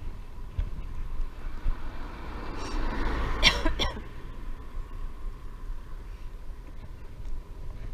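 Wind rumbling on the microphone during a bicycle ride, with a brief louder burst of noise about three and a half seconds in.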